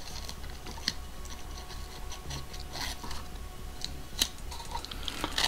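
Handling noise from a charger mounting bracket and its hook-and-loop strap: scattered light clicks and scratches as it is turned over and the strap is worked, over a steady low hum.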